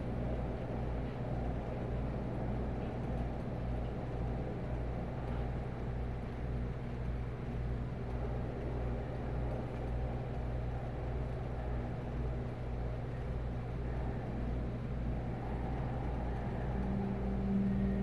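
A steady low rumble from a horror short film's sound track, with a slight fluttering pulse in the deepest notes, unchanging throughout.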